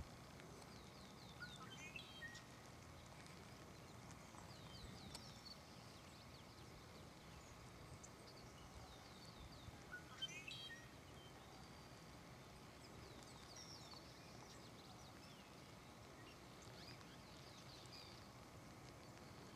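Faint outdoor ambience with small birds chirping now and then: short runs of quick sweeping notes, the clearest about two seconds in and the loudest about ten seconds in.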